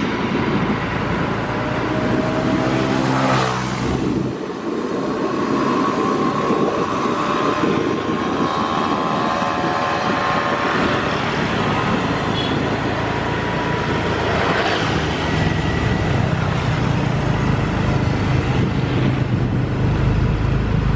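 Steady running noise of vehicles moving along the railway and the road beside it. A thin whine slowly rises in pitch through the middle, and a deeper engine hum comes in near the end.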